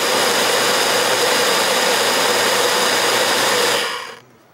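A loud, steady rushing hiss with a faint hum in it, fading out near the end.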